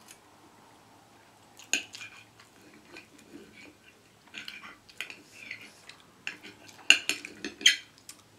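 Fork and knife clinking and scraping on ceramic plates, with a sharp clink about two seconds in and a cluster of clinks near the end.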